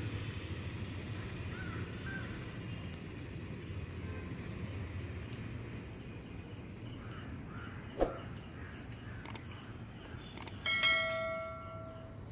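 Garden ambience: a steady low rumble and a steady high whine, with a few faint bird calls. About eight seconds in there is a sharp click, then more clicks and a bright bell chime that rings and fades near the end: the sound effect of a YouTube subscribe-button animation.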